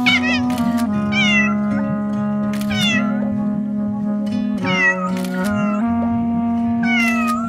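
Cat meows set to music: about five meows, each falling in pitch, over steady held musical chords.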